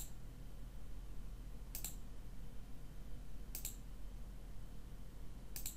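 Computer mouse button clicks: four short double clicks, spaced about two seconds apart, over a faint steady low hum.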